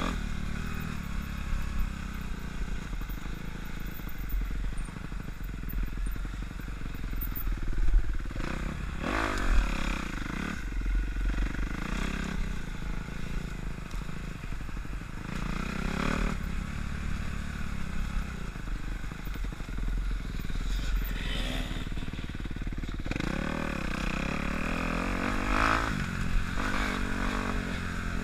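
Dirt bike engine running while being ridden, the revs repeatedly rising and falling with the throttle.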